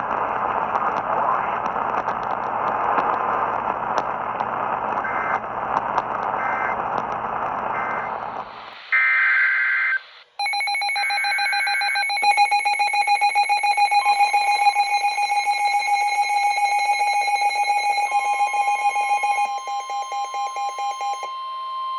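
Radio static hiss, then about nine seconds in the brief screeching data bursts of an Emergency Alert System header, followed by a long pulsing electronic alert tone made of several steady pitches, with a second steady tone joining partway through.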